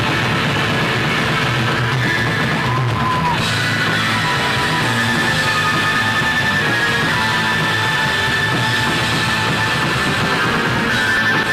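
Rock band playing live at a steady loud level, with electric guitars and a drum kit.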